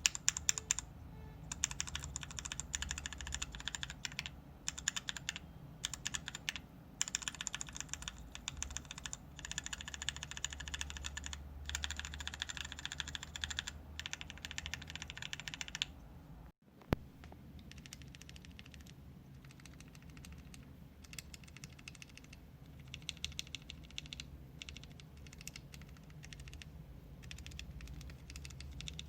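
Steady typing on a mechanical keyboard with stock, unlubed linear switches (Gateron KeyFirst, tested against Gateron Yellow, NovelKeys Cream and Gateron Ink Black), a run of rapid key clicks and bottom-outs. The typing breaks off for a moment about sixteen seconds in, then resumes quieter.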